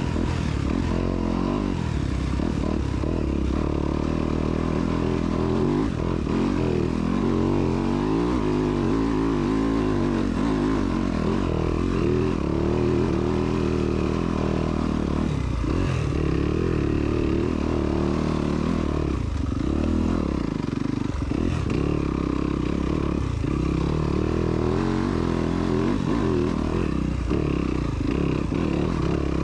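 Engine of the vehicle riding the race course, running continuously with its pitch rising and falling as the throttle changes.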